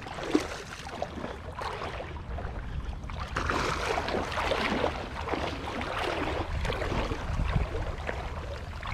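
Shallow water splashing and sloshing as a hooked flathead thrashes at the surface, getting busier a few seconds in, over a low steady rumble.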